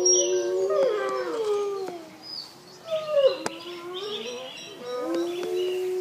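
A pack of wolves howling in chorus: several long howls overlap at different pitches, some sliding down, and one is held steady near the end.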